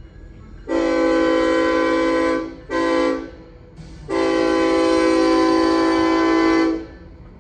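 Diesel locomotive's multi-chime air horn sounding a long blast, a short blast and a long blast, the end of the long-long-short-long grade crossing signal.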